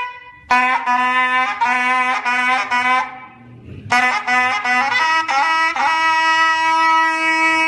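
Music led by a trumpet: a run of quick repeated notes, a brief pause about three seconds in, then more notes ending on a long held note.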